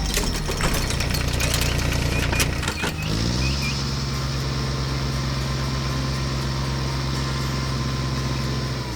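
Engine sound effect of a cartoon construction machine. It is uneven, with clicks and knocks, for about the first three seconds, then settles into a steady low running hum until near the end.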